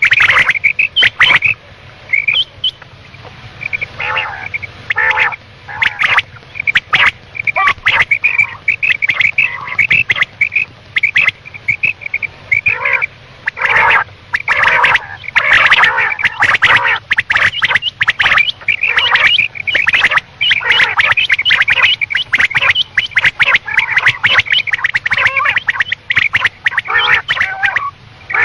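Quail calling in rapid, repeated short notes, in near-continuous runs with brief pauses. It is a female quail's call of the kind played as a lure in quail hunting.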